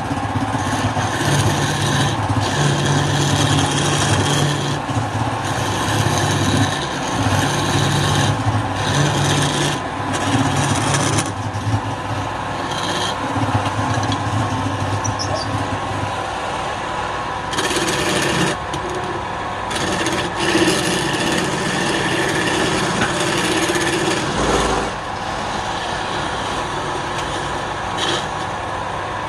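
Wood lathe running while a tool cuts and scrapes the spinning wood: a continuous rough scraping over a low hum, and the hum drops away about halfway through.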